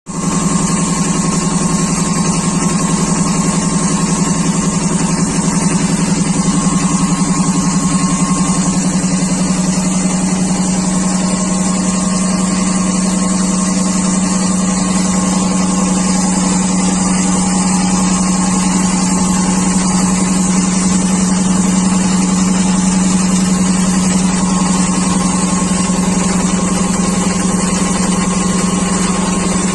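Atlas Copco high-pressure air compressor running steadily: a constant low hum with a hiss of air over it.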